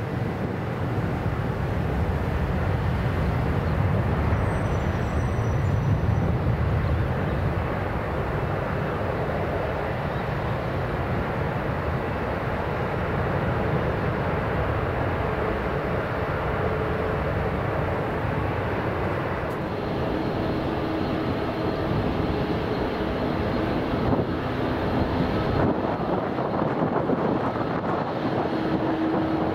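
Boeing 787 jet airliner taking off, a steady low engine rumble that is heaviest a few seconds in. About two-thirds of the way through, the sound cuts to another Boeing 787 on landing approach: engine noise with steady whining tones over the rumble.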